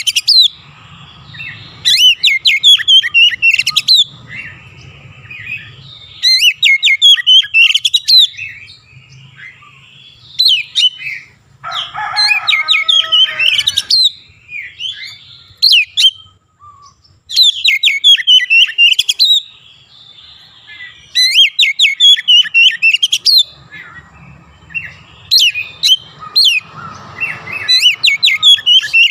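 Oriental magpie-robin singing loud phrases of rapid, sweeping whistled notes, one phrase every two to three seconds. About twelve seconds in comes a lower, harsher phrase; the bird's song is tutored with mimicked Javan myna calls.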